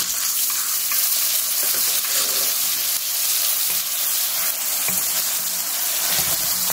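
Chopped watermelon rinds sautéing in a stainless steel pan: a steady frying hiss, with a few soft scrapes and knocks as a wooden spatula stirs them.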